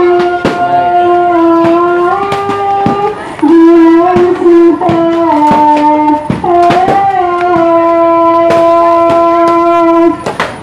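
A voice chanting a slow melody in long held notes that step up and down, one note held for several seconds. Sharp short cracks are scattered through it.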